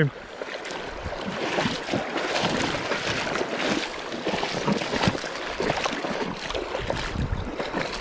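Fast, shallow river water rushing, with irregular splashing and wind buffeting the microphone.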